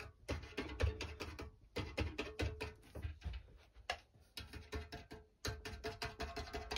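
Freshly strung racquetball racket strings clicking and twanging as a straightening tool is run across them, in quick passes of rapid ticks broken by short pauses.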